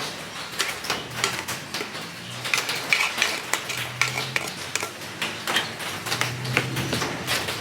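A rapid, irregular run of small sharp clicks and clinks, like hard bits against a dish, over a faint low hum.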